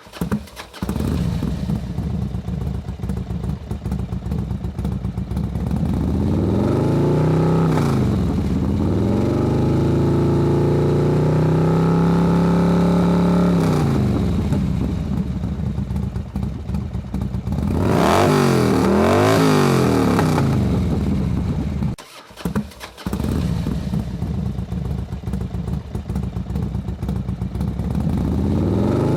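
Motorcycle engine idling with an uneven pulse, revved up and down several times. One rise is held for a few seconds about a third of the way in, and there is a burst of quick blips around two-thirds through. The sound cuts out briefly soon after, then the idle resumes and begins to rise again near the end.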